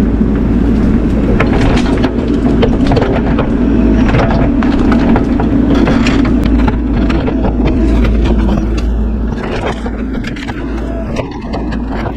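Bobcat E42 mini excavator's diesel engine running under load, with scattered sharp cracks and scraping from the machine working against the trees. The engine note eases slightly near the end.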